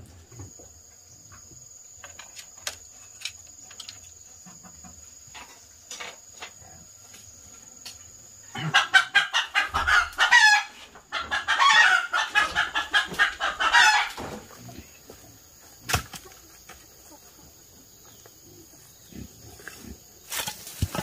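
Rooster crowing twice, each crow two to three seconds long and ending in a falling tail, with the second following the first almost at once.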